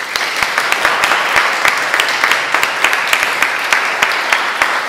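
Congregation applauding, with sharp, distinct claps from one pair of hands close by.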